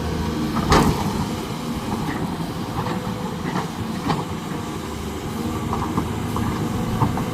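Heavy diesel engine running steadily at a low rumble, with a few short knocks and clanks over it.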